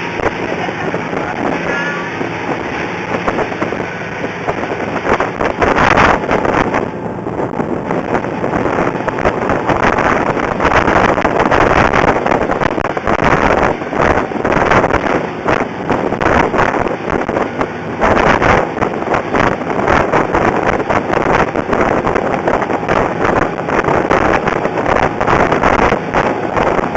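Small motorboat underway, its engine running under a loud, unbroken rush of wind and water. It grows louder about ten seconds in.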